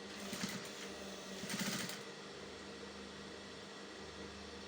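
Sewing machine running in two short bursts of stitching, each about half a second, as it topstitches along a seam; a steady motor hum continues between them.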